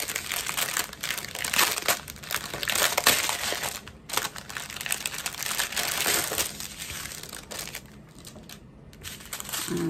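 A clear plastic bag of diamond-painting drill packets crinkling as it is handled and laid out flat. The crinkling is busiest for the first seven seconds, then dies down to a few quieter rustles.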